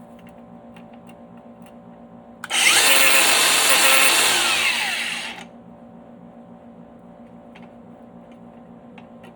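Angle grinder, used without a guard, switched on about two and a half seconds in for a short burst of grinding on a screw end in a GoPro mount, then cut off, its pitch falling as it winds down.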